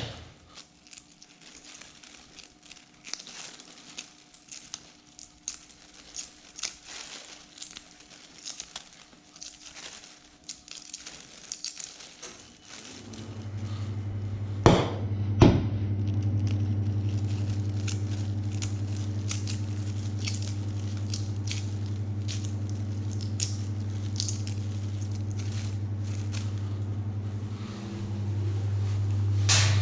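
Hard-boiled eggs being peeled by hand over a plastic bin bag: small crackles of breaking eggshell and rustling of the bag. About halfway through, two sharp knocks are followed by a steady low machine hum that runs on and is louder than the peeling.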